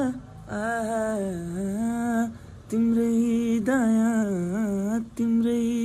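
A man's voice singing a wordless, unaccompanied melody in long held notes with a slight waver, in four phrases broken by short breaths.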